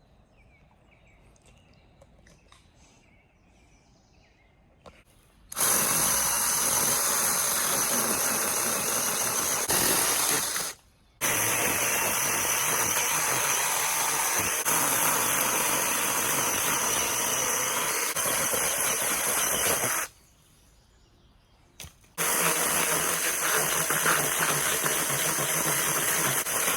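A cordless power tool runs in three steady stretches of several seconds each, starting and stopping abruptly. Its motor gives a high whine over a broad noise.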